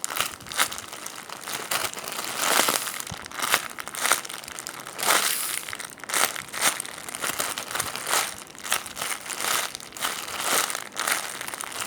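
Repeated crinkling and rustling as a jumbo foam squishy toy is squeezed and handled, in irregular bursts every half second to a second.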